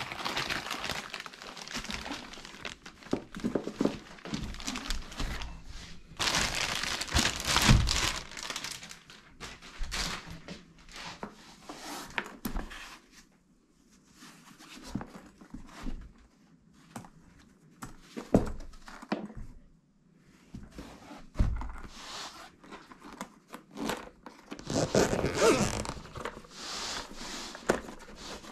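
Product packaging being handled and opened: cardboard and wrapping rustling and crinkling in irregular bursts, with occasional thunks as the box and its contents are knocked or set down.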